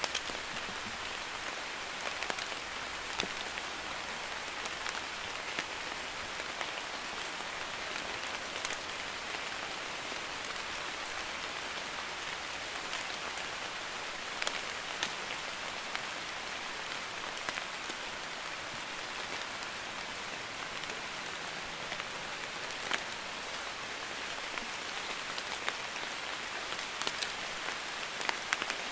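Light drizzling rain falling steadily: an even hiss with scattered individual drops splashing.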